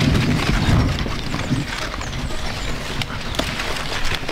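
Corn leaves rustling and crackling as a cornstalk is handled and the silk is pulled off the ear, with wind buffeting the microphone.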